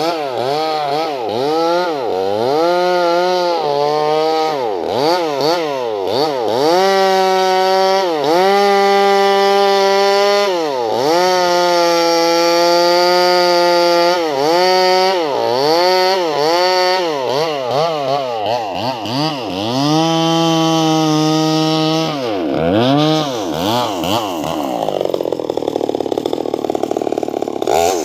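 Chainsaw with a 24-inch bar ripping a log lengthwise. The engine revs up and drops back again and again, held at a steady high pitch for a few seconds at a time, with a rougher, noisier stretch near the end.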